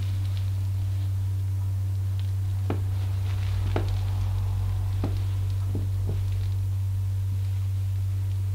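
A steady low hum throughout, with a few faint, short taps in the middle few seconds.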